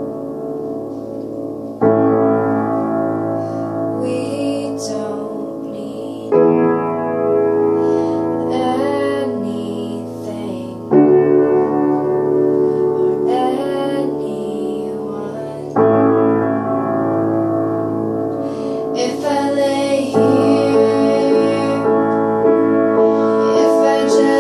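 Piano playing sustained chords that change about every four and a half seconds, with a female voice singing the melody over them.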